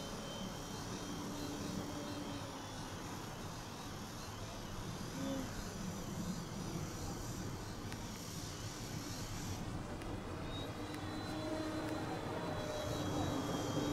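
3D-printed radio-controlled model plane flying overhead, its motor and propeller making a steady drone with a faint high whine that shifts slightly in pitch about ten seconds in.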